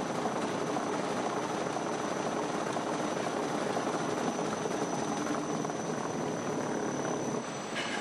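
Volkswagen Golf running on a roller test stand, its tyres spinning on the steel rollers with a steady rumbling whir. The sound eases off a little shortly before the end.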